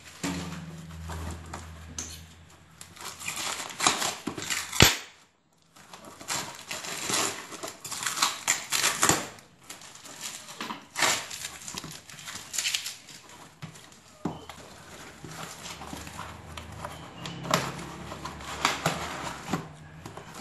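A cardboard shipping box being torn and pulled open by hand, in a series of irregular ripping and scraping rasps of cardboard and packing tape. A low steady hum runs underneath at times.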